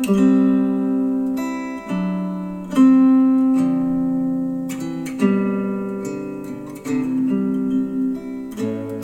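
Acoustic guitar music with strummed chords that ring and fade, a new chord every one to two and a half seconds. It is played back through hi-fi bookshelf speakers.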